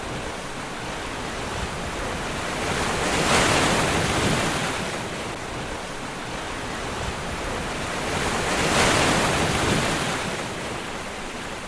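Ocean surf washing onto a beach, a steady rushing noise that swells louder twice as waves break, a few seconds in and again past the middle.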